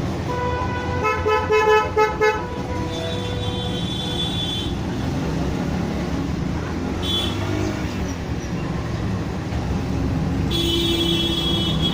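Vehicle horns honking over a steady background of road traffic: a quick run of short honks about a second in, then longer, higher horn notes a few seconds in and again near the end.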